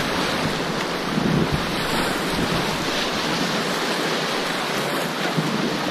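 Fast-flowing river whitewater rushing and splashing around an inflatable kayak, with wind buffeting the microphone: a steady, loud rush of noise.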